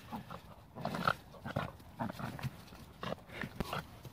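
A Belgian Malinois puppy and a small white long-haired dog scuffling in play, with short warning growls in irregular bursts as the smaller dog tells the puppy off.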